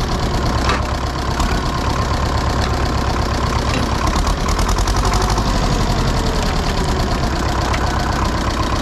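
Farm tractor engine running steadily with an even, rapid firing beat as the tractor moves in its lowest, creeper gear.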